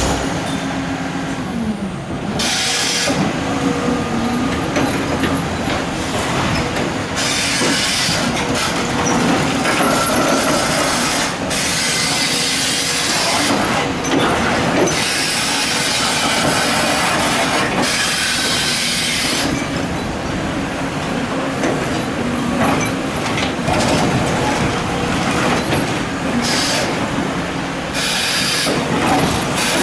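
Excavator working: its diesel engine and hydraulics run, the engine note rising and falling, with bursts of harsh scraping and clanking noise that come and go every few seconds.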